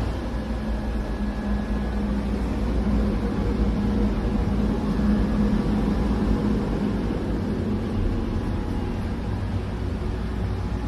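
Roomba robot vacuum running: a steady motor hum with a low drone and a held low tone.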